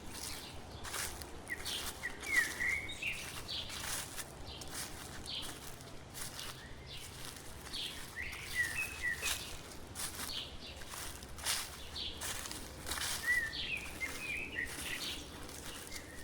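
Footsteps crunching through fallen dry leaves at a steady walking pace. A songbird sings three short bursts of chirping notes over them.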